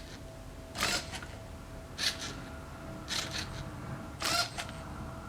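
LEGO NXT servo motors whirring in short bursts, four times at about one-second intervals, as the robot turns the bottom layer of a 2x2 Rubik's cube. A faint steady whine runs underneath.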